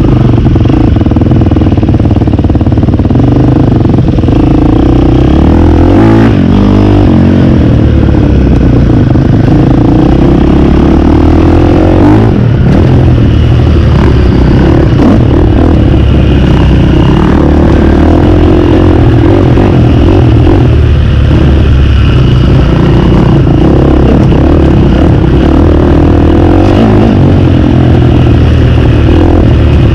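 KTM dirt bike engine running loud under way on a trail, its revs rising and falling with the throttle, with sharp swings in pitch about six and twelve seconds in.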